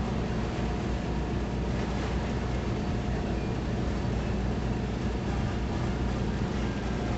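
Sternwheeler paddleboat's engine running steadily underway, a low drone under a constant rushing hiss.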